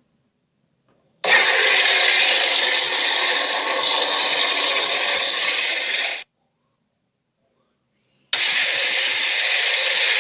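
Creature roar sound effects for a made-up dinosaur: a harsh, noisy roar lasting about five seconds, then dead silence, then a second roar starting about two seconds later.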